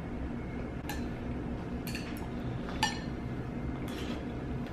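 Eating utensils clinking against plates and a serving platter: about four separate clinks roughly a second apart, the loudest near the end with a short ring, over a steady low hum.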